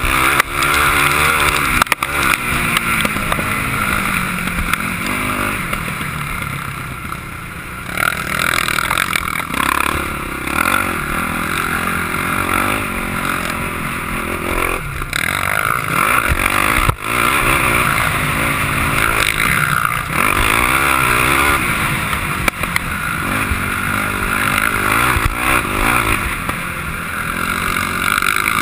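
Sport quad's engine heard close up from the rider's own machine, revving up and down hard as it is ridden round a motocross track, with a few short throttle lifts.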